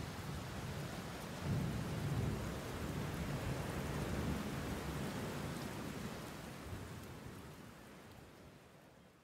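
Thunderstorm: steady rain hiss with a low rumble of thunder that swells suddenly about a second and a half in and rolls on for several seconds. The storm sound then fades out near the end.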